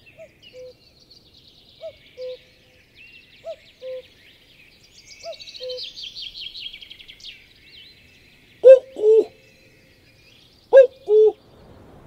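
A bird repeating a low two-note call, a short higher note then a longer lower one, about every second and a half, much louder twice in the last third. High, quick songbird twittering runs alongside through the first two thirds.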